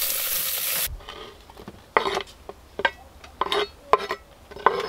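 Pork belly sizzling as it fries in a pot, just starting to burn, which cuts off suddenly about a second in. Then a knife knocks on a wooden chopping board a handful of times at an irregular pace as vegetables are cut.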